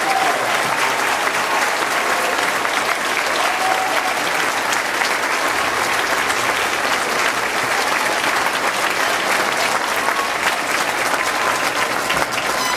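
A large crowd gives a standing ovation, with dense, steady applause.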